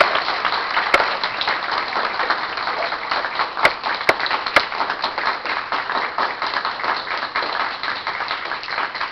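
An audience applauding: a dense patter of many hands clapping, easing off near the end, with a few sharp single claps close to the microphone a few seconds in.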